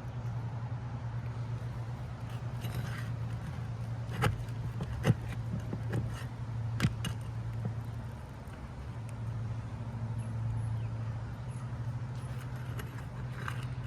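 Metal clicks and taps of a pry bar working roof-shingle nails loose, four sharp ones between about four and seven seconds in, over a steady low hum.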